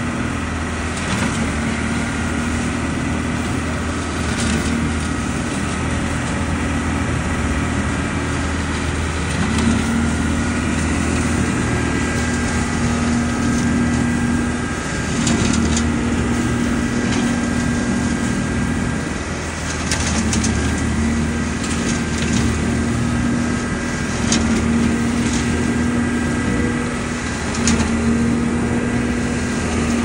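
ODB LCT650 trailer-mounted leaf vacuum running steadily, its engine and fan droning while dry leaves are sucked into the hose, with an irregular crackle and rattle of leaves and debris going through.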